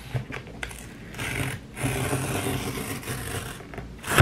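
Tear strip of a cardboard mailer being ripped open, a rasping tear in two pulls, the second lasting about two seconds. A short sharp knock comes at the very end.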